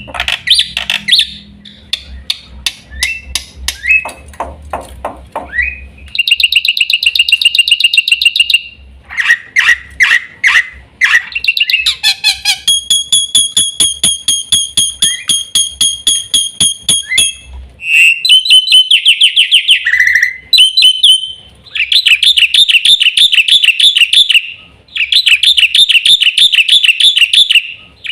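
Black-winged myna (jalak putih) singing a long, varied song of fast rattling trills and clicks, with a held whistled note with overtones about halfway through.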